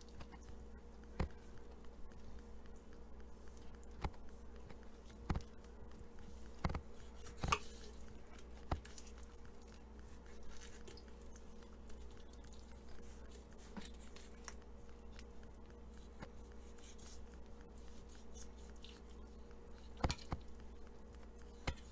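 A knife and gloved hands cutting raw chicken meat off the carcass in a bowl: quiet handling noise with sharp taps and clicks every few seconds, over a steady low hum.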